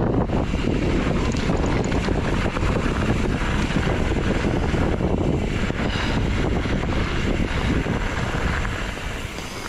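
Wind buffeting the microphone of a camera carried on a moving mountain bike: a steady, dense rumble and rush that eases slightly near the end.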